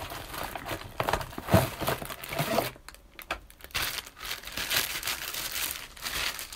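Clear plastic wrapping crinkling and rustling as a tripod is pulled out of its box and handled in its plastic bag, with a short lull about three seconds in.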